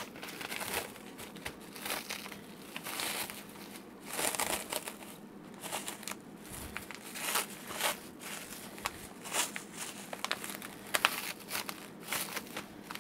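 Clear plastic wrapping crinkling and crackling in irregular bursts as hands pull it open and off a bundle of acrylic case parts.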